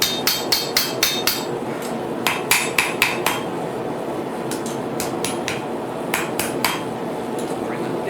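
Blacksmith's hammer striking hot steel on an anvil in quick runs of ringing blows, about four a second, with short pauses between runs. A steady rush of forge blower noise runs beneath.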